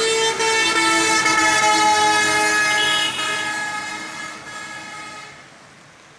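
Vehicle horns honking in traffic, several pitches sounding together and held for a few seconds, then fading away about five seconds in.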